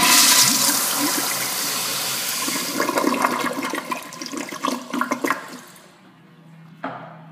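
Older Eljer Ultra toilet on a flushometer valve flushing: a loud rush of water that turns choppy after about three seconds and dies away by about six. A short knock comes near the end.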